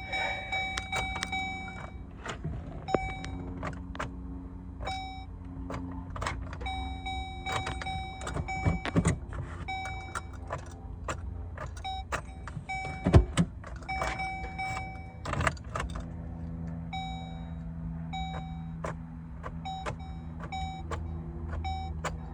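A car's electronic warning chime dinging over and over in runs with short pauses, mixed with clicks and knocks of handling in the car and a steady low hum.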